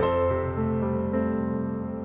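Background piano music: a held chord slowly dying away, with a couple of soft low notes added.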